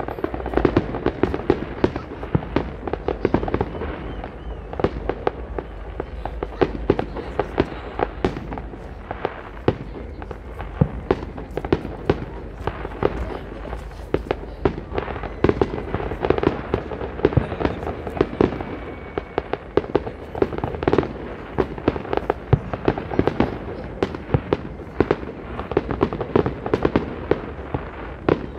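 Aerial fireworks display: a dense, irregular barrage of bangs and crackling bursts that keeps up without a pause.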